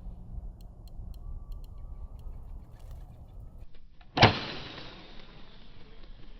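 Low wind rumble with faint scattered ticks, then about four seconds in a single sharp loud thump of a bow being shot at pigeons, trailing off in a fading hiss.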